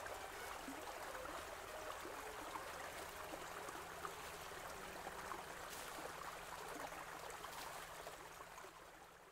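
Faint, steady outdoor ambience: a water-like rushing hiss with small scattered ticks, fading out near the end.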